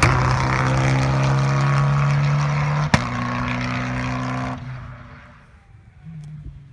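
Rally car engine at high revs, holding a steady pitch as the car passes, with a sharp crack about three seconds in. The sound falls away quickly about four and a half seconds in, leaving a fainter engine.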